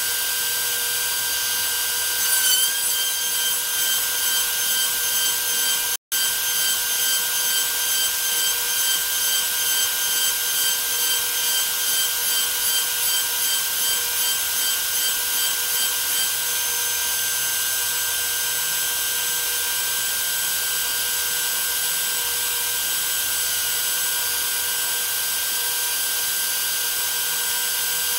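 DeWalt 611 compact router running at high speed on a CNC machine, a steady whine mixed with the noise of a small end mill cutting aluminium plate. For the first half the cutting noise pulses about twice a second, then settles to an even sound.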